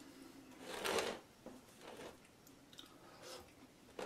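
Rotary pizza cutter rolling through a baked pizza's crisp crust on a wooden cutting board, crunching. The loudest pass comes about a second in, with fainter ones after.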